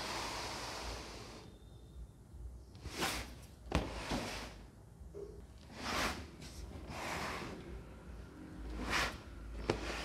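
A cardboard toy box being handled and turned over on a tabletop: a series of short brushing, rubbing sounds of hands and cardboard sliding, with two light knocks.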